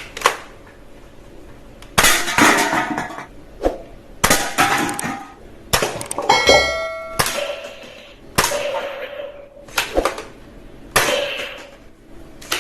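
A series of about nine sharp clattering knocks, each trailing off in a short rattle, with a brief ringing tone about six seconds in.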